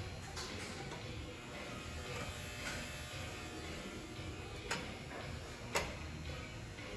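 Electric automatic door operator's motor humming steadily as it swings a steel door open and back shut, with two sharp clicks in the second half, the louder one as the door closes against the frame.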